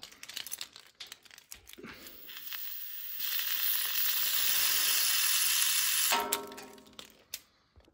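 Newly fitted radiator being bled through its bleed valve with a radiator key: a few clicks and key-ring rattles as the key goes on, then trapped air hisses out, building and holding for about three seconds before it sputters and stops.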